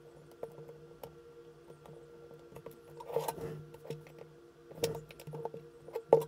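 Handling noise from working on a partly disassembled Hasselblad 2000FC camera body: scattered light clicks and taps, a short scraping rustle about three seconds in, and sharper clicks near the end, over a faint steady hum.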